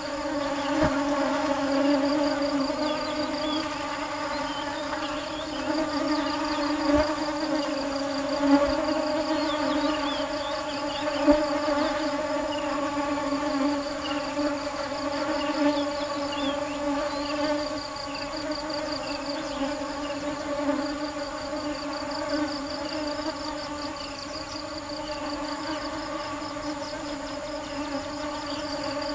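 Honeybees buzzing: a steady, even droning hum, with a fast high trill and scattered short chirps faintly behind it.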